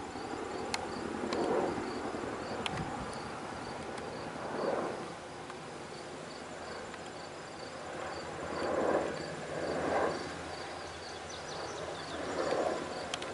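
Insects chirping in a steady, even rhythm, about two or three high chirps a second, over a rushing background that swells and fades several times.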